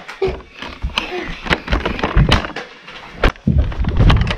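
Scuffling and rough handling close to the microphone: a quick run of sharp knocks and clicks with heavy rumbling thumps, loudest in the last second.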